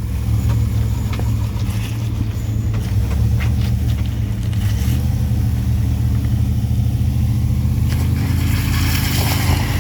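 Off-road vehicle engines running steadily while a stuck Jeep is pulled out on a kinetic recovery rope, with a rush of hissing noise near the end.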